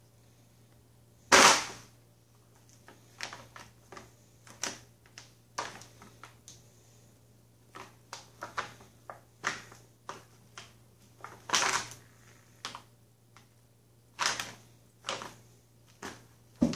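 Heavy plastic cat-litter bag crinkling and crackling in irregular bursts as kittens pounce on it and claw at it, with the loudest crackle about a second in.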